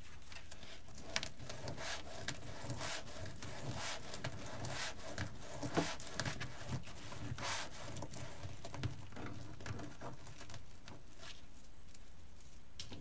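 Deco mesh rustling and crinkling as hands spread, gather and scrunch it, a steady run of soft scattered crackles.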